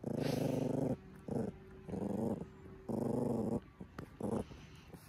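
Small dog growling at a ewe in a string of low growls, four of half a second to a second and a short one near the end: it is guarding the person it stands on, warning the sheep off.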